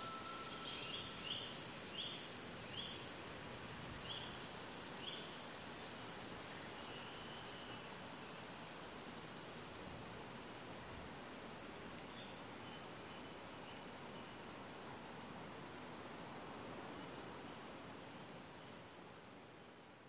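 Steady, high-pitched, unbroken chirring of crickets in a meadow at dusk. A bird gives a quick series of about ten short chirps in the first five seconds. The chorus fades out near the end.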